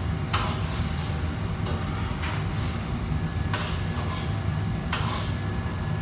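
Commercial wok range running with a steady low roar from the burner and extractor hood, while a metal ladle stirs and scrapes the wok, making a short sizzling scrape about once a second.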